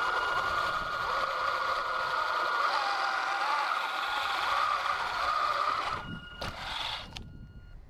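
Two 775 brushed DC motors driving a 3D-printed RC tank's gearboxes and tracks under load in deep snow: a steady high whine over a wavering mechanical hum. About six seconds in the drive stops, with a few sharp knocks, and only a faint high whine remains.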